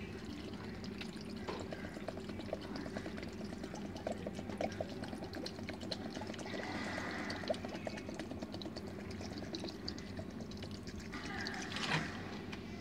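Water pouring in a steady trickling stream from a plastic bottle onto dry instant noodles in a glass bowl, stopping near the end.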